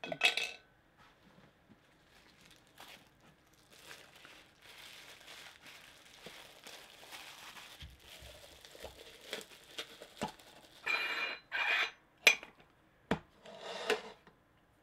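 Plastic bag crinkling and rustling as a vinyl figure is handled. Near the end come a few louder metallic scrapes and sharp clicks from a tin soda can and its metal lid being handled.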